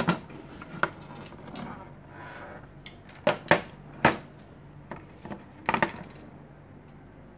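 Scattered sharp clicks and light clinks of hard parts and tools being handled, about seven in all, several in quick pairs, over a low steady hum.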